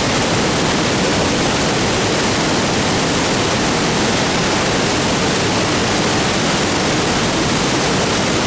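Waterfall: a loud, steady rush of falling water, unbroken throughout.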